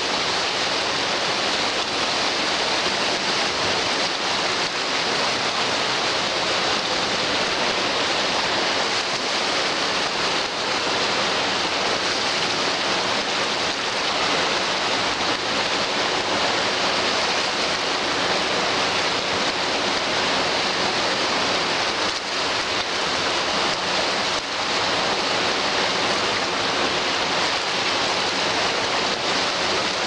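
Small sea waves washing in over and around low shoreline rocks, a steady hiss of surf with no distinct breaks.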